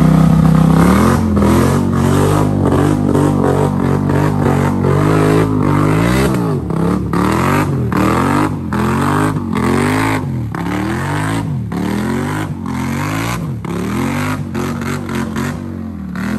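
Polaris Sportsman 850 ATV's twin-cylinder engine revving hard as it churns through a mud hole. It holds high revs at first, then surges up and down about once a second from the middle on as the throttle is worked, with mud and water splashing.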